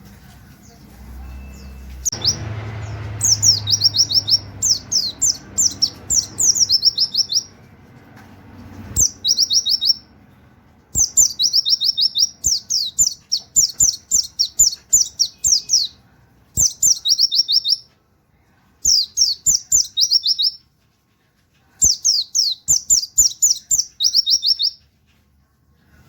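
A white-eye (pleci) singing a fast volley song ('nembak'): spurts of quick, high, falling 'wit' notes, each spurt lasting one to two seconds, with short pauses between them. Faint clicks sound between the phrases.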